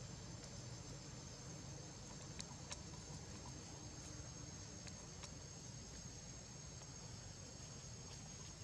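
Faint, steady high-pitched drone of insects, with a few soft clicks.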